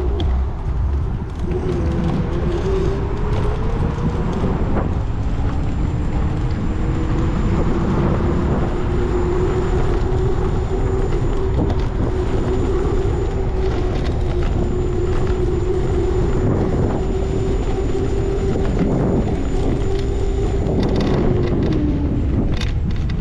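A vehicle in motion. A motor whine rises as it picks up speed over the first few seconds, holds steady while cruising, and drops near the end as it slows, over steady road and wind rumble.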